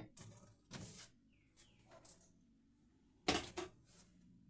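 Faint handling sounds of items and fittings inside a refrigerator being moved: a few short soft knocks and scrapes, the clearest pair a little after three seconds in.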